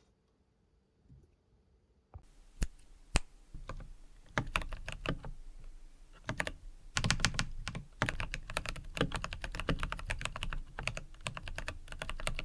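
Keychron V1 mechanical keyboard with brown switches being typed on: a few separate keystrokes starting about two seconds in, then fast, continuous typing from about the middle on.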